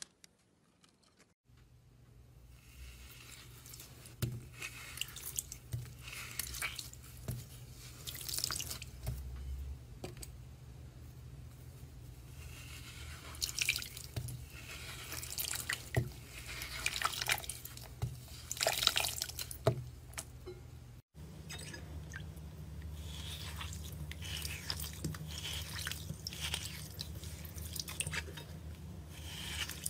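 Slime being squeezed and pressed by hand, with irregular crackling and popping clicks. About two-thirds of the way through it changes to a soaked slime block being squished and broken in a bowl of water, with sloshing and dripping.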